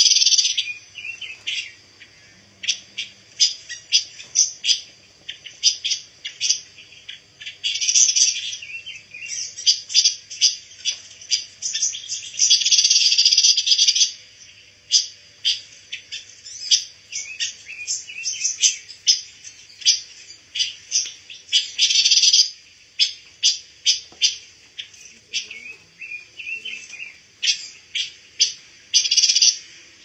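Caged pancawarna songbird calling: sharp, high chirps roughly one or two a second, broken several times by dense chattering runs lasting a second or two.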